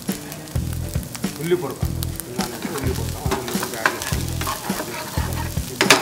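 Fried rice sizzling in a hot pan while a metal spatula stirs and scrapes it against the pan, with repeated short scrapes and clicks.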